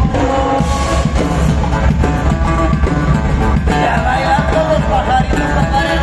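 A live band playing a huapango through the stage PA: a steady dance beat under an instrumental melody line.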